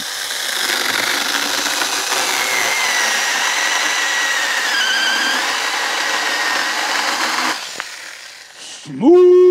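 A 24-volt cordless mini chainsaw cutting through a log: the electric motor's whine and the chain tearing through wood, the pitch dipping a couple of times as the chain bites under load. About seven and a half seconds in the saw is released and winds down.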